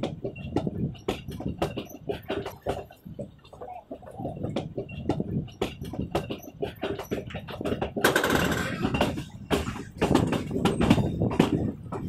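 Passenger train carriage in motion: a steady running rumble with a dense, irregular clatter of knocks from the wheels and rattling coach. About eight seconds in, a louder rush of hiss lasts around a second.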